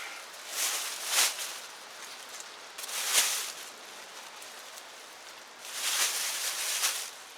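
Rustling as a bag of harvested onions is handled for weighing, in three bursts about a second, three seconds and six seconds in.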